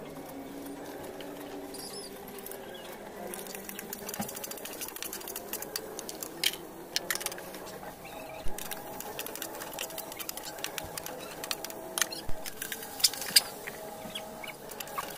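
Hot cooking oil sizzling in a frying pan as garlic fries, with sharp pops and crackles that grow more frequent and louder in the second half.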